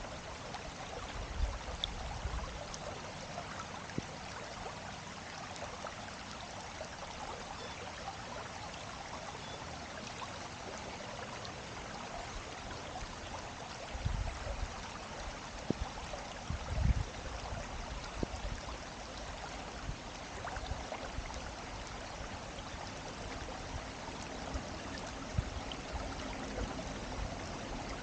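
Steady rushing of flowing water, a stream or brook. Brief low rumbles come through it about a second and a half in, and twice more just past the middle.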